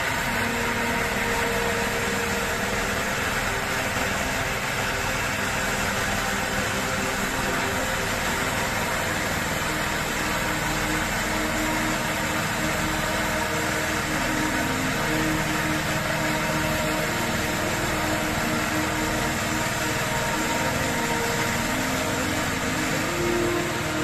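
Engine-driven machinery running steadily at a constant pace.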